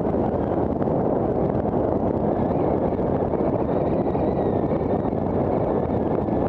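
Steady wind rush on the microphone of a camera riding on a moving bicycle, an even, unbroken roar.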